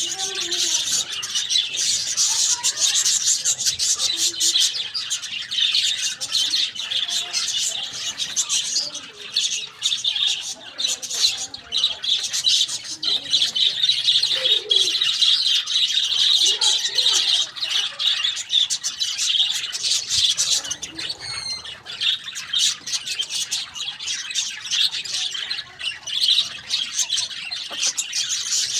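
A dense, unbroken chorus of many small birds chirping, with a few lower calls scattered underneath.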